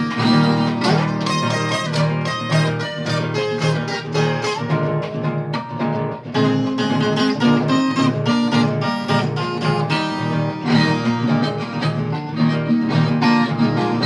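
Viola caipira (Brazilian ten-string folk guitar) playing an instrumental break of a caipira song, busy plucked runs over steady low notes, with no singing.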